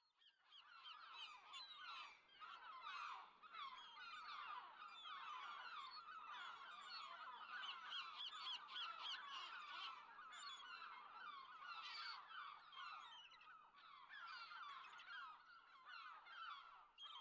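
Faint, continuous chatter of a flock of birds: many short calls overlapping one another without a break.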